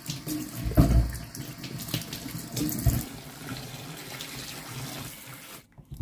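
Kitchen tap running onto peeled potatoes being rubbed clean by hand in a stainless steel sink, with two dull knocks about one and three seconds in. The running water cuts off suddenly near the end.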